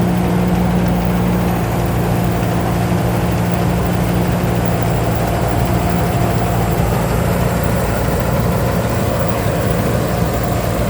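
Rice combine harvester's engine running steadily at a constant pitch, with the even mechanical noise of the harvester working.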